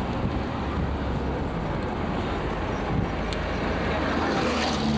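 Steady running noise of a motor vehicle heard from inside as it drives: a continuous low engine rumble with road noise.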